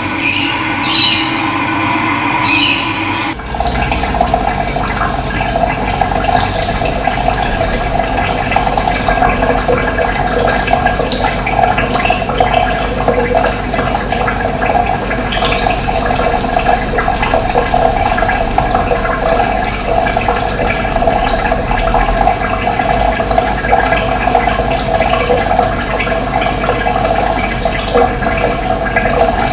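Steady rush of running water, like a stream, that begins with an abrupt cut about three seconds in. Before the cut there is a different background with a few short high sounds.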